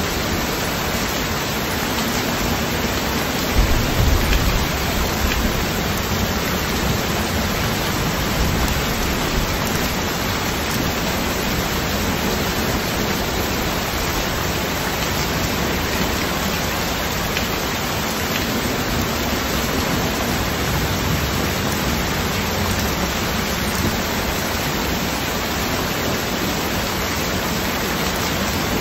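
Heavy rain pouring steadily onto a flooded street, an even, dense hiss of drops splashing into standing water. A brief low rumble about four seconds in.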